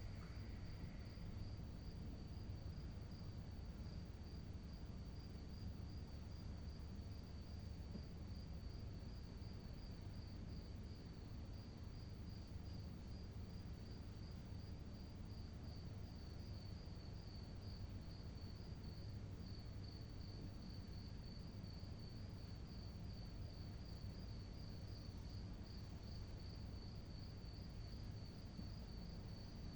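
A cricket chirping at night: one high-pitched, evenly pulsed song that keeps up without a break, over a faint low background rumble.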